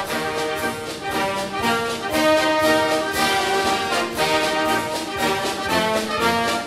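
Background instrumental music with brass and a steady beat.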